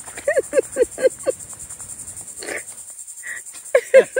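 Steady high-pitched buzzing of insects. Over it, a quick run of short voiced syllables, about five a second, sounds during the first second and a half and starts again near the end.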